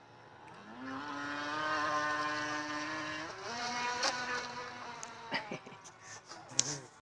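Radio-controlled speedboat's motor running hard with a steady buzzing tone. The tone climbs in pitch as the boat speeds up, steps higher about three seconds in, then fades as the boat pulls away. A few sharp clicks come near the end.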